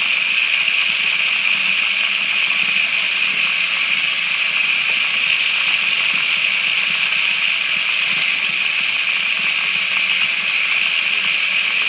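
Kitchen tap running full blast into a plastic tub, water gushing and washing over a pocket sluice's riffles in a steady hiss. The owner finds this flow too weak for the sluice.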